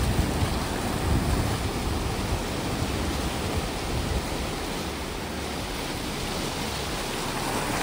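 Sea surf breaking and washing over a rocky shore: a steady rush of waves.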